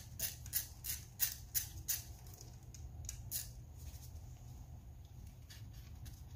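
Ratchet socket wrench clicking in short strokes, about three a second, as it backs out the 10 mm bolt holding an ignition coil. The clicking stops about three and a half seconds in.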